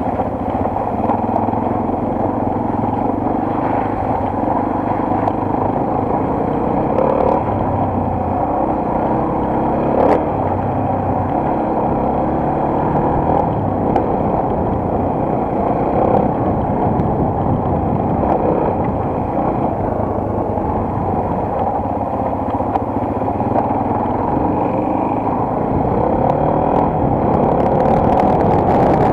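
Single-cylinder four-stroke enduro motorcycle engine running on the move, its pitch shifting a little with the throttle. A couple of sharp knocks or rattles come through, and it gets a bit louder near the end.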